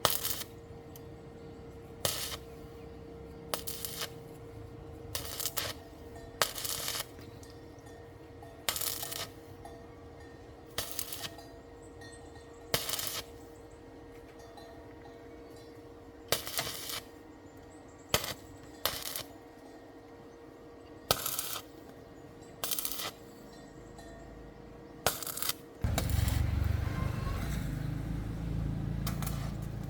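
Sharp metallic clinks and knocks, one or two at a time every second or two, over a steady faint hum. Near the end a louder, low, steady sound takes over.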